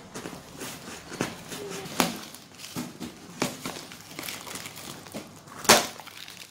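Thick corrugated cardboard packaging being torn and pried open by hand: scattered crackles and sharp snaps, the loudest one near the end.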